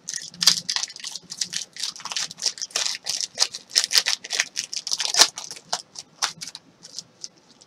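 Trading cards and card packs being handled and opened: quick, irregular scratchy rustles and clicks, several a second.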